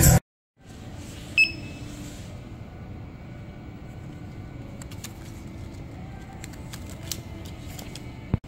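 Music cutting off at once, then a steady low rumble with one short electronic beep about a second and a half in and a few faint clicks later.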